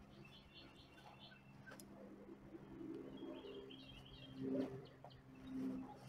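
Small birds chirping in quick high trills, twice, over a steady low hum. Near the end come two louder, short low sounds about a second apart.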